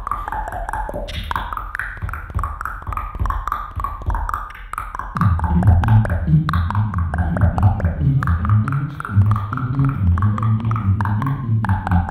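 Live beatboxing through a microphone and PA. A high pitched melody runs over rapid percussive clicks, and a deep bass line joins about five seconds in, so one mouth imitates two parts at once.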